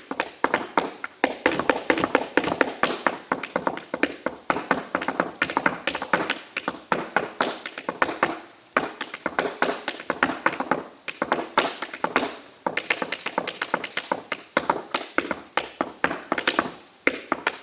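Tap shoes striking a hard surface in fast, dense improvised footwork, strings of sharp taps with a couple of brief breaks.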